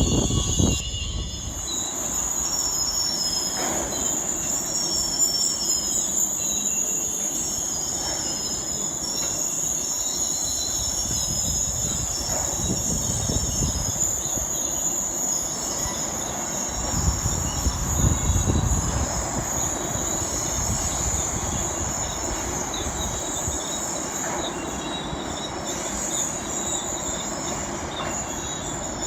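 CSX rail train unloading new rails, with a steady high-pitched metal screeching and low rumbling that swells a few times, strongest about two-thirds of the way through.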